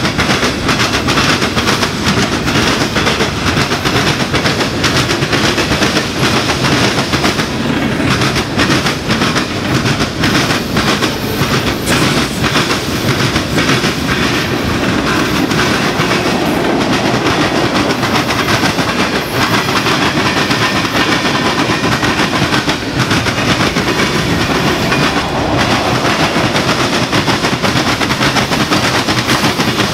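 Freight cars of a manifest train rolling past and banging over railroad diamond crossings: a loud, continuous, rapid clatter of wheel impacts.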